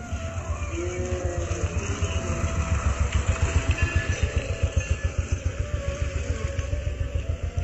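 Motorcycle engine running at low speed, a low rapid pulsing beat close by that grows louder about three seconds in.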